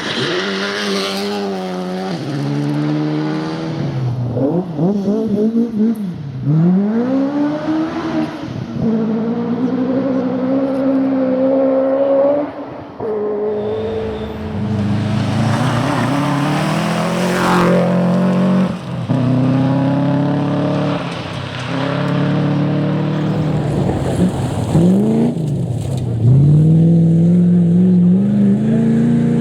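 Rally car engines pulling hard through the gears, pitch climbing and dropping back again and again as they shift, with a burst of hissing noise about halfway through and a long rising pull near the end.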